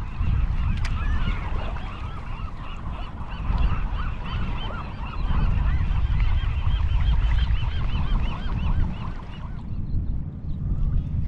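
A flock of geese honking, many short calls overlapping in a dense chorus that thins out near the end. A low rumble runs underneath.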